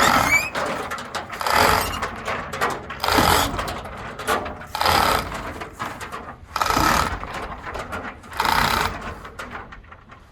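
A hand-operated hoist worked in regular strokes to lift the truck body off its frame: a noisy mechanical stroke about every second and a half to two seconds, six times, with a rising squeak near the start.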